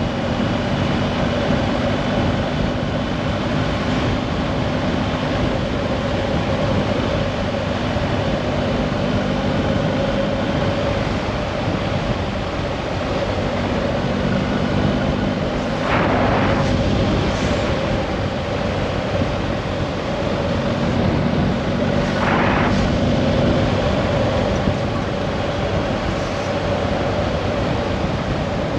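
Steady drone of a running vehicle engine with a constant hum and rushing noise, swelling briefly twice, about 16 and 22 seconds in.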